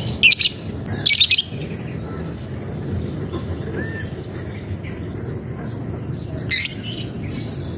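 Songbird known locally as a labet giving loud, rapid, high challenge calls to a rival bird, in three short bursts: two in the first second and a half, one near the end. A steady low background noise runs beneath.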